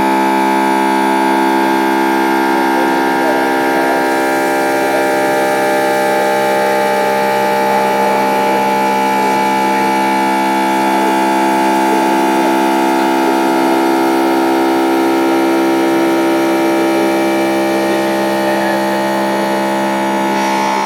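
Haas VF-3 CNC mill's spindle and cutter running at constant speed while cutting an internal thread, a loud, steady whine made of several held tones.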